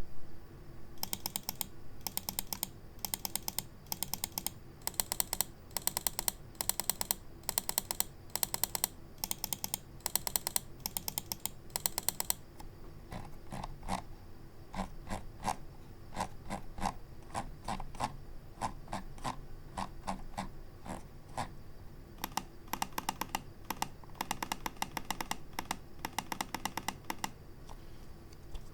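RAWM ES21M gaming mouse buttons clicked over and over in quick succession. Bright, sharp clicks give way about halfway through to duller, lower-pitched clicks, and the sharp clicks return near the end.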